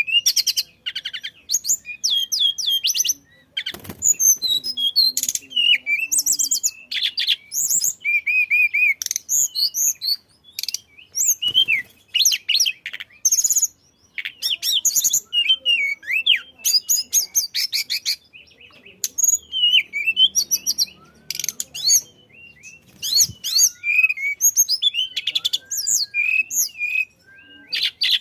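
Tledekan (a Cyornis blue flycatcher) singing a fast, varied song of high chirps, trills and whistled slurs, phrase after phrase with only brief pauses.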